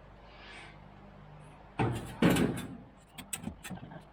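Two loud sharp clunks about two seconds in, fading over a second, then a run of light clicks and taps, like objects being handled and set down.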